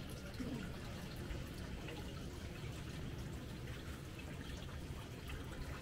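Steady background of running, trickling water with a few faint drips or ticks.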